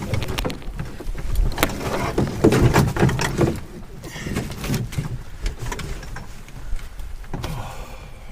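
Irregular knocks, thuds and scrapes with rustling as canoe and portage gear are handled and lifted for a carry. The knocks are densest in the first half.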